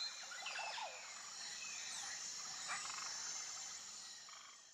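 Faint mangrove-wetland ambience: frogs calling over a steady high-pitched chorus, with a few short gliding calls about a second in and again near three seconds, fading out near the end.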